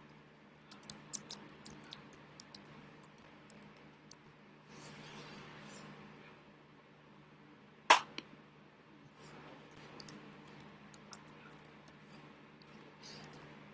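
Hands tapping and slapping against each other and the body while signing in sign language, with light rustling of the shirt; one loud slap about eight seconds in, and two short stretches of hiss. A low steady hum runs underneath.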